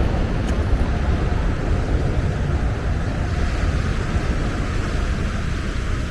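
Wind buffeting the microphone in a steady, low rumble over an even rush of outdoor noise.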